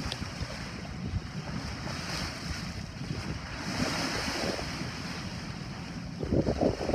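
Wind buffeting the microphone over a steady rush of sea water, as on a boat under way, with a louder surge of water near the end.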